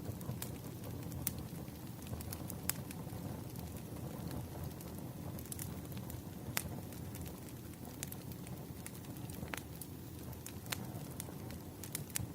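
Wood fire crackling: a steady low rumble with sharp pops and snaps scattered irregularly, several a second.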